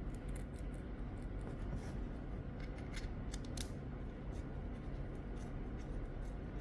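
A quick, irregular run of small sharp clicks and light rubbing from small hard objects being handled close up, over a steady low hum.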